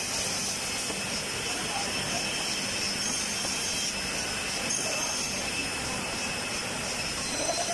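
Double end tenoner running steadily while MDF cabinet panels are fed through it: a constant rushing machine noise with faint high whines.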